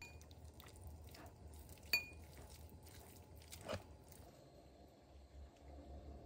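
Two metal forks pulling apart cooked beef in a ceramic bowl: faint scraping and small taps, with one sharp ringing clink of fork against the bowl about two seconds in and a duller knock near four seconds.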